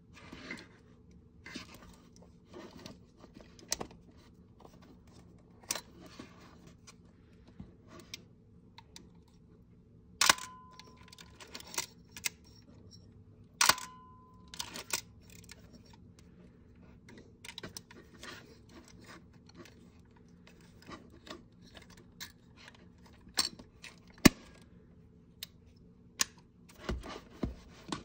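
Handling noise of a Fujica AX-3 35mm SLR camera body: scattered small clicks and knocks of its body, controls and strap. Two louder sharp clicks about three and a half seconds apart near the middle, each followed by a brief high ring, and a few dull thuds near the end.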